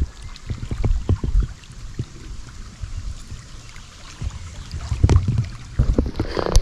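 Wind rumbling on the microphone in irregular gusts, with a few soft knocks mixed in.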